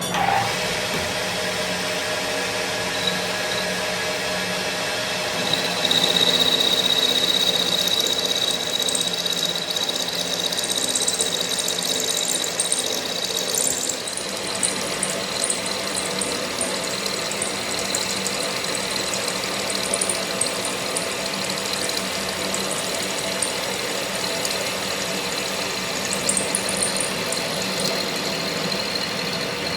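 A workshop machine running steadily with several steady tones. A high whine comes in about five seconds in and drops away around halfway, where the sound of the machine changes.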